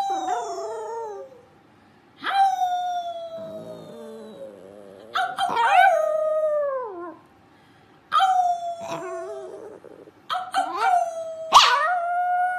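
Small dog howling, about six howls in a row, each starting sharply and sliding down in pitch.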